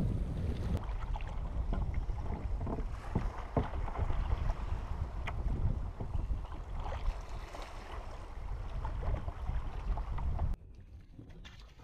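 Wind buffeting the microphone over choppy open ocean, with water sloshing and slapping around a kayak and scattered small knocks and splashes. About ten and a half seconds in the sound drops suddenly to a much quieter hiss.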